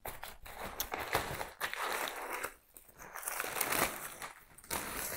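White paper wrapping crinkling and rustling in uneven bursts as it is pulled off a potted aglaonema.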